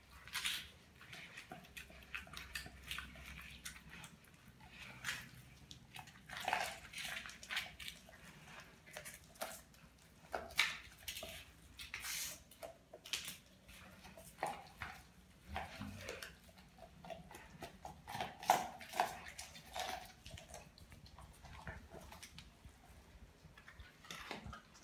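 A Doberman chewing and licking a whole raw tilapia: wet smacking and slurping broken by irregular sharp crunches, on and off throughout.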